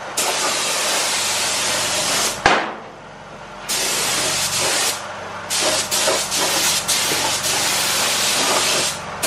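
Compressed-air spray gun spraying etch primer, a loud hiss that starts and stops in about five bursts of one to two seconds as the trigger is pulled and released. A single sharp knock sounds about two and a half seconds in.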